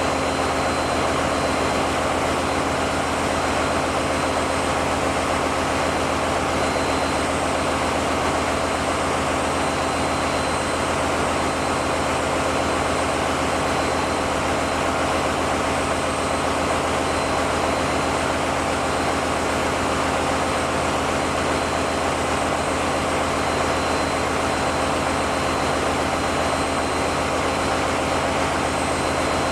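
Steady drone of heavy running machinery, a constant low hum with a faint high whine above it, typical of a diesel generator room with engines running.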